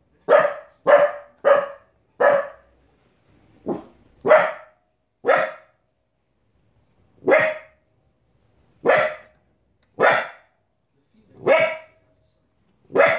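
Border Collie puppy, 15 weeks old, barking at animals on the television: about a dozen short barks, four in quick succession at the start, then single barks a second or more apart.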